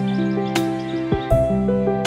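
Background music: gentle new-age piece with held chords and light percussive hits about once a second.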